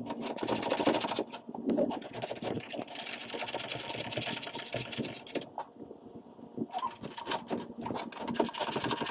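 Ratcheting wrench clicking rapidly in runs as screws are tightened into the underside of a car's hood, with short pauses about a second in and just past the middle.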